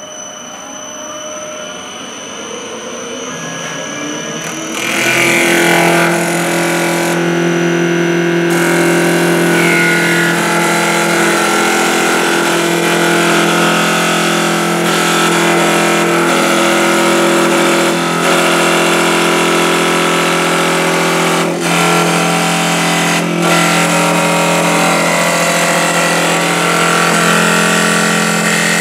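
CNC wood lathe running: its spindle speeds up with a rising whine over the first few seconds, then about five seconds in the cutter bites into the spinning wooden blank. From then on the machine turns the spindle profile with a loud, steady mix of motor whine and wood cutting.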